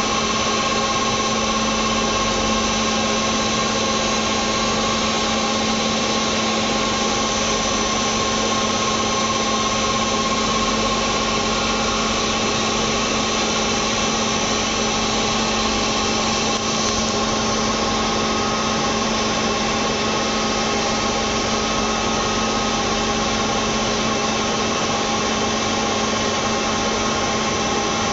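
CNC machine running: a steady mechanical hum with several constant tones over an even noise, the low tone the strongest.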